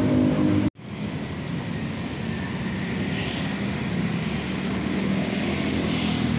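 Street traffic: motor vehicle engines running steadily, cut off abruptly for an instant under a second in, then going on.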